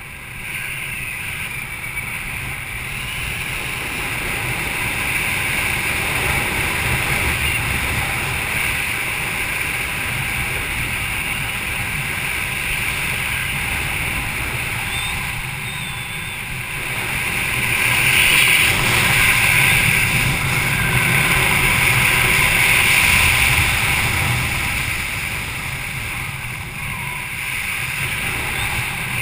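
Steady wind rushing over a GoPro camera during a parachute descent under an open canopy, swelling louder for several seconds past the middle.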